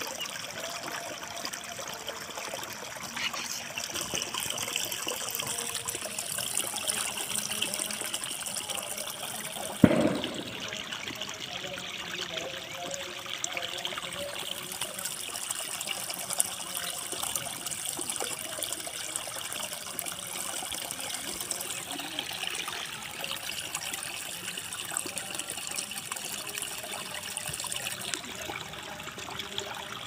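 Shallow water running and trickling along a narrow grassy channel, a steady babble of flowing water. A single sharp knock about ten seconds in, much louder than the water, with a smaller tick a few seconds later.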